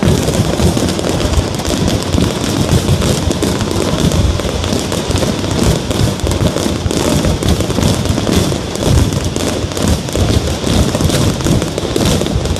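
Fireworks display going off continuously: many overlapping bangs and crackles in a steady, dense barrage.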